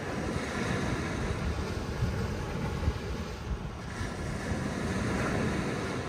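Small sea waves breaking and washing up a sandy beach, with wind rumbling on the microphone. The surf swells twice, easing off briefly in between.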